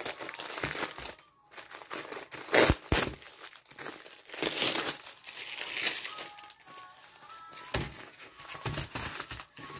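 Paper wrapping crinkling and rustling in irregular crackles as a rolled diamond painting canvas is unwrapped and unrolled by hand.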